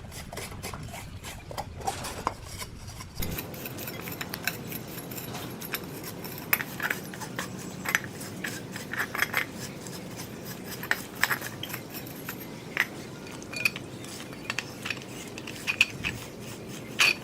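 Scattered light metallic clinks and taps of tools and old ceiling-fan parts being handled, irregular and a few each second, over a steady low background hum.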